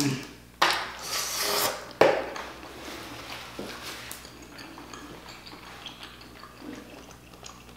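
Close-up eating sounds of someone chewing boiled crawfish: a louder noisy burst, like a suck or slurp, about a second in, a sharp click at two seconds, then quieter chewing and shell rustling.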